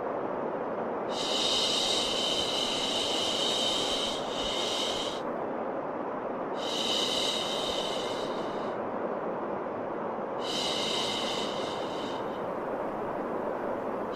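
Steady white noise with a long hissing 'shhh' shushing sound on top, heard three times, each about two to four seconds long, the usual sound for soothing a colicky baby to sleep.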